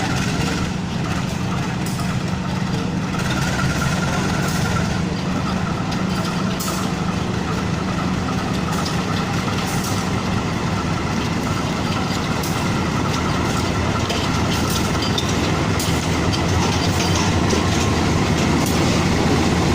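CC 201 diesel-electric locomotive running: a steady low engine hum under rail and train noise, growing slightly louder near the end.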